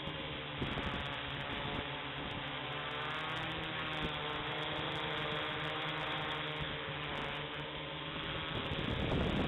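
Small electric quadcopter's motors and propellers whining steadily, heard through the camera mounted on the craft. Wind rumble picks up near the end.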